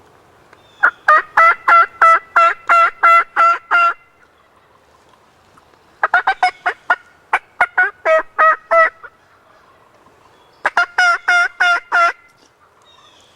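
Three runs of turkey yelps, each a string of loud, evenly spaced notes at about four a second. The second run starts about six seconds in and the third about eleven seconds in.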